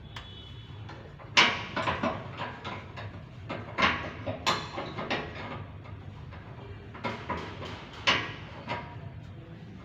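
Irregular knocks and clattering, several sharp impacts in small clusters, over a low steady hum.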